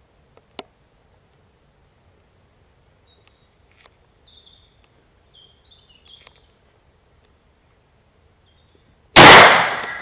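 A single very loud gunshot about nine seconds in, fired from the hunter's gun at close range, with a long echoing decay through the woods. Before it there is a faint click and a few faint high chirps.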